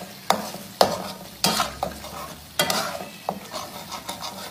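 Slotted spatula stirring and scraping a thick chilli-tomato paste in a pan of hot oil, with a sizzle under it. The spatula makes several short scrapes, about one every half second to a second.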